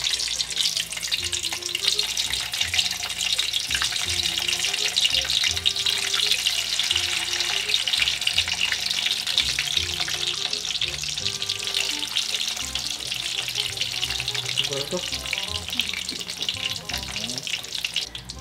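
Battered fish tempura strips frying in a pan of hot oil: a dense, steady sizzle and crackle.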